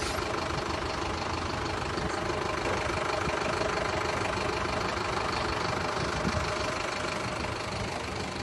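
Strong sandstorm wind blowing steadily, with a vehicle engine running underneath.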